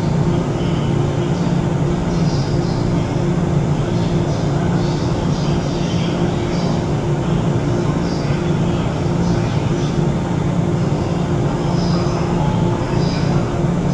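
Steady low hum of a stationary JNR 185-series electric train, its onboard equipment running, with a steady drone and a fainter higher tone held throughout.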